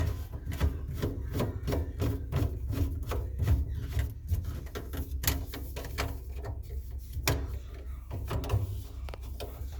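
Irregular clicking and scraping of P-trap drain parts being fitted together by hand, several clicks a second.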